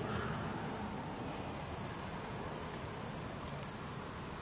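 Insects buzzing outdoors: one steady high-pitched tone that does not change, over an even background hiss.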